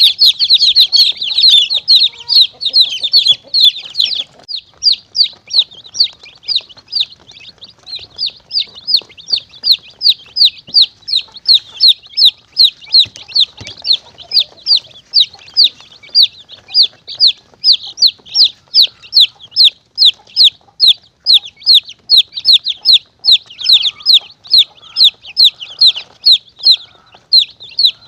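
Baby chicks peeping: short, high cheeps that fall in pitch, crowded together for the first few seconds, then in a steady run of about three a second. It is a recorded chick distress call used as a lure to draw monitor lizards and mongooses.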